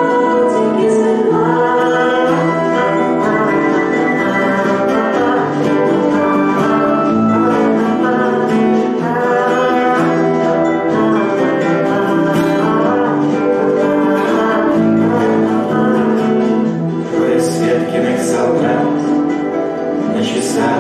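A man singing a song to his own classical guitar, the nylon-string guitar played steadily under the voice.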